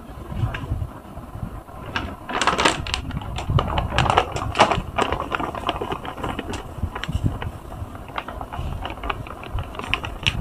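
Scouring powder shaken from a plastic shaker bottle over wet, foamy sponges: a quick run of rattling taps, densest about two to five seconds in, then sparser.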